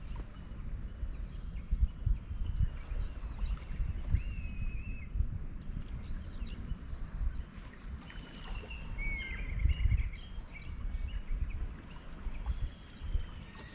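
Uneven low rumble of wind on the microphone and water lapping against a fishing kayak, with small birds chirping several times over it in short high calls.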